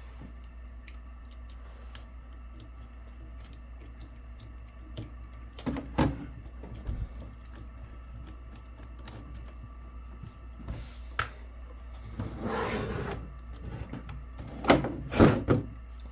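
Small metal RC wheel parts and screws being handled on a workbench: scattered clicks and knocks, a short scraping rustle about twelve seconds in, and a cluster of louder knocks near the end, over a steady low hum.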